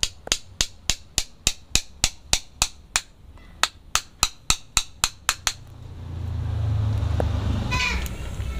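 A small hammer tapping a screwdriver, used as a chisel, into the base of a bonsai trunk to split and score the wood. The taps come at an even pace of about three or four a second and stop about five and a half seconds in, after which a low rumble takes over.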